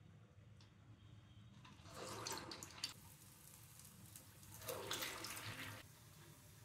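Urad dal vadas (garelu) slid by hand into hot oil in a kadai, each setting off a burst of sizzling: two bursts about three seconds apart, each lasting about a second.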